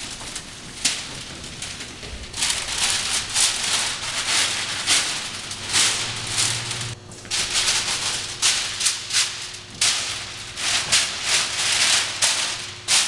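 Irregular rustling and crunching noise in quick short bursts, with brief lulls about two, seven and ten seconds in. A faint steady hum runs underneath.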